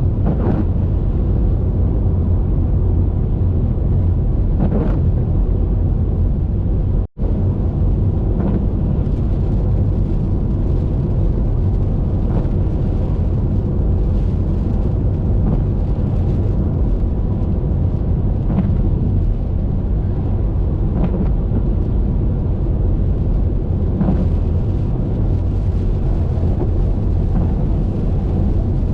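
Car driving on a rain-wet highway: a steady, loud low rumble of road and wind noise, with faint scattered crackles. The sound cuts out for an instant about seven seconds in.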